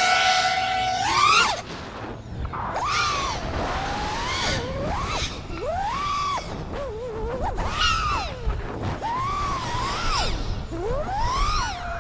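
Brushless motors and propellers of an FPV freestyle quadcopter, running on a Voltara ESC with a Kiss Ultra flight controller. About a second in, a steady whine climbs sharply. After that the pitch keeps swooping up and down every second or two as the throttle is punched and chopped through the moves.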